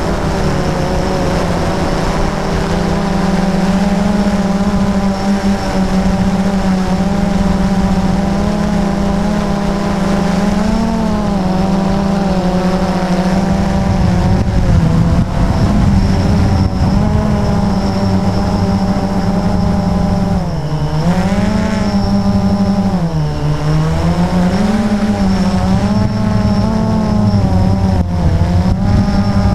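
Onboard motor and propeller of the small aircraft carrying the camera, running steadily with a constant pitch at first, then dipping and rising in pitch several times in the second half as the throttle changes.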